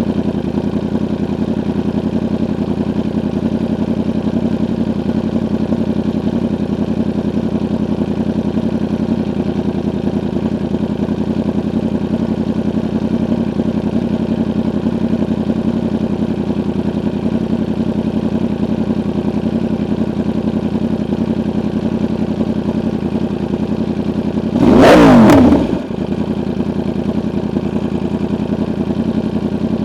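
Yamaha R1 inline-four with an aftermarket SC Project exhaust idling steadily, blipped once near the end in a short, loud rev that rises and falls back to idle.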